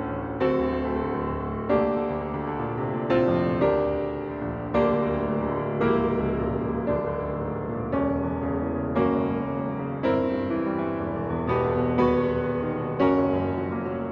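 Steinway grand piano played solo, a classical passage with strong chords or accented notes struck about once a second, each ringing and fading before the next.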